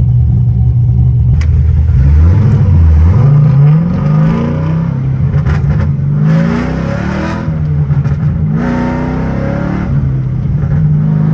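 LS3 V8 engine in a swapped Subaru BRZ, idling steadily and then revved several times, its pitch climbing and dropping with each rev.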